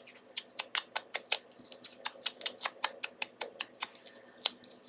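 Rapid light clicking taps, about five or six a second, as the edges of small card-stock squares are tapped against a Tim Holtz Distress Ink pad to ink them. One sharper, louder tap comes near the end.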